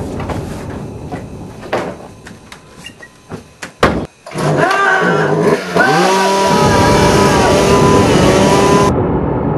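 A few scattered knocks and one sharp loud bang, then an engine revs up: its pitch swoops up and down for a couple of seconds, then holds at a steady high rev.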